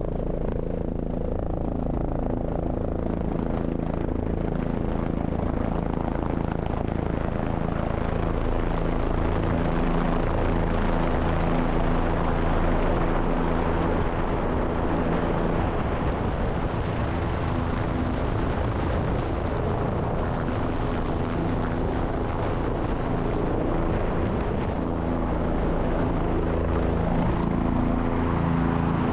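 Helicopter engine and rotor running steadily in flight, a continuous drone with no change in pace.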